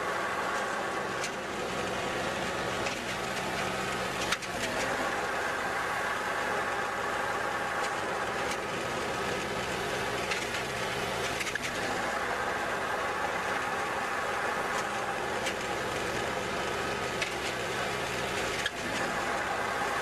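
Engine of a powered Christmas tree baler running steadily, with a few short sharp clicks and knocks scattered through it.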